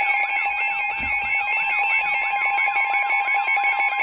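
Weather radio alert alarms sounding together, signalling a severe thunderstorm warning: the steady NOAA Weather Radio warning tone, mixed with a pulsing beep and a warbling chirp that repeats about three times a second.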